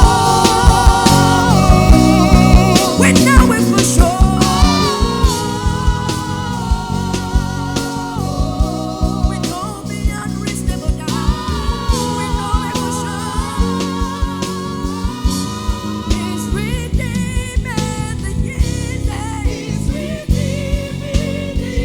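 Live gospel worship music: a singer's voice with vibrato over keyboard and bass with a steady drum beat.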